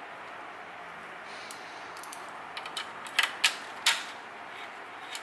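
Sharp metallic clicks and clinks of hand tools and steel parts being worked on a Toyota front axle knuckle, three loudest ones close together about three to four seconds in, over a steady faint hiss.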